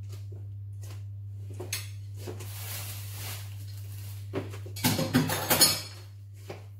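Dishes and kitchen utensils clattering: a few light clicks, then a loud run of knocks and clinks about five seconds in. A steady low hum lies underneath.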